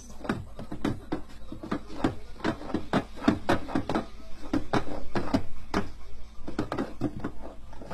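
Wooden clacking and knocking from a wooden whack-a-mole toy box, several sharp knocks a second, as a cat paws at its wooden levers and pegs.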